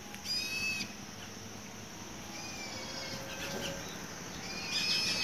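An animal's high-pitched call, given three times: once just after the start, once in the middle and once near the end, each about half a second long.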